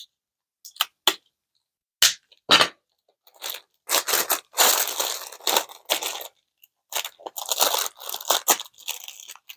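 Clear cellophane gift bag crinkling as it is rolled and taped shut: a few short crackles over the first three seconds, then longer stretches of crinkling.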